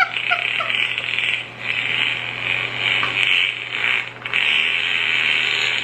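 Recorded fart sound effect from a fart soundboard, one long fart that runs about 22 seconds in all. It holds on steadily, with brief dips about one and a half and four seconds in.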